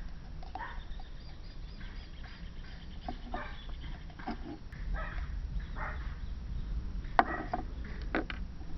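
Faint handling sounds of a tin can and a tube of silicone sealant over a steady low rumble, with a sharp knock about seven seconds in and a few lighter taps just after.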